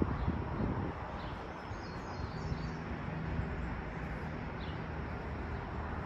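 Outdoor background noise with a low steady hum and a few faint, short, high bird chirps.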